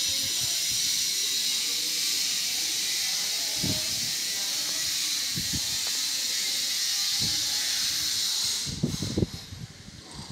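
Steady, loud hiss that cuts off abruptly near the end, followed by a short cluster of low handling thumps as the camera is moved.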